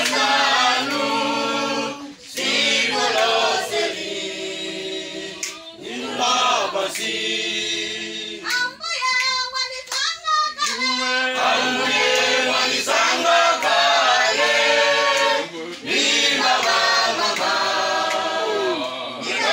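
A church congregation singing a worship song together, unaccompanied voices. About halfway through, a high, fast-wavering voice stands out for a few seconds.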